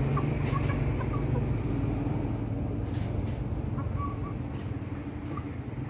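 Caged black-bone silkie chickens giving short, soft, high chirps every so often. A steady low mechanical hum runs underneath.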